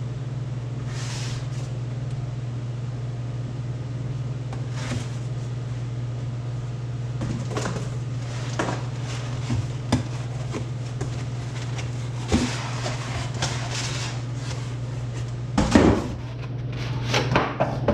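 Parts of a vacuum chamber kit being unpacked and handled: scattered knocks, clunks and rustles, with a louder clatter about 16 seconds in, over a steady low hum.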